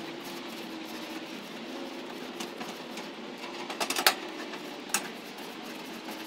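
A wire grill brush scraping across hot gas-grill grates, with a short cluster of scrapes about four seconds in and another about a second later, over a steady hum.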